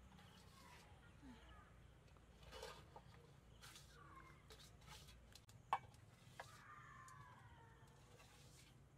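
Quiet rural ambience: faint clicks and taps of bamboo skewers and hands against a metal bowl while fish are rubbed with chili paste, with one sharp click a little before the middle. A faint bird call falls in pitch near the end.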